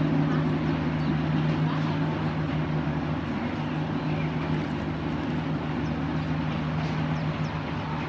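A steady engine drone at a constant pitch, with faint short bird chirps over it.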